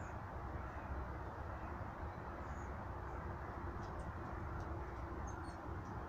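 Steady low outdoor rumble with a faint hum running through it, and a few short, faint, high bird chirps from about two seconds in.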